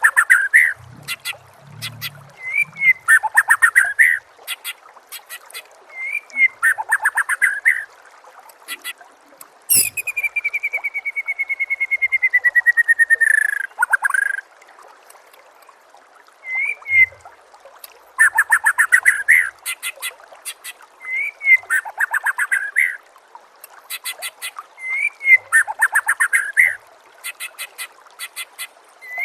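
White-rumped shama (murai batu) singing: short phrases repeated every few seconds, each a quick upslurred note and a fast run of sharp notes, with a long rattling trill that falls slightly in pitch about ten seconds in. Faint steady hiss underneath.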